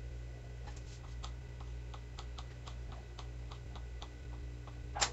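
Kitchen knife tapping on a stone countertop as it cuts a rolled rope of soft cornstarch-and-cream dough into small biscuit pieces: quick, light clicks about three to four a second, with one louder knock near the end.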